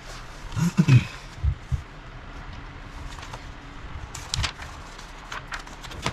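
Plastic Lego pieces knocking and clicking as the model is handled and parts are pressed together: a cluster of dull thumps about a second in, then scattered sharp clicks.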